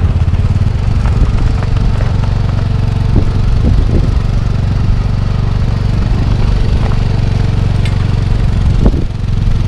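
Small engine of a utility vehicle running steadily as it tows a wheeled hang glider across grass, with a few knocks about three to four seconds in and again near the end.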